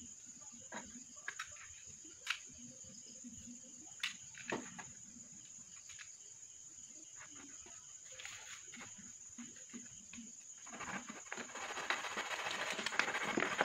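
A utility knife blade cutting and scraping into a thin aluminium drink can: a few scattered clicks of the can and blade being handled, then a scratchy rasping of the blade working the metal, louder from about eleven seconds in.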